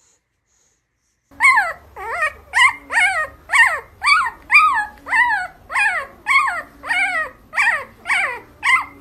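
A young puppy whimpering in a steady run of short, high squeals, about two a second, each rising and then falling in pitch; it starts about a second in.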